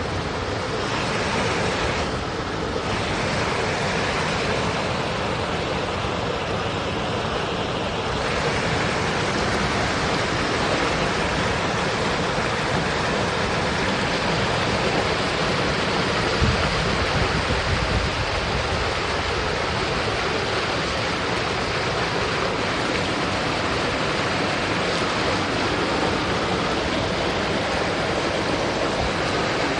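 Mountain stream running steadily through forest, a continuous even rush of water. A brief low thump comes about sixteen seconds in.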